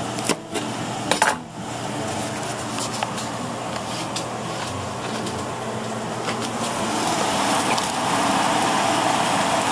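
A few knife chops through scallions on a cutting board in the first second or so. Under them, a sauce of balsamic vinegar and honey bubbles and sizzles in a saucepan on a gas burner, getting louder over the last few seconds.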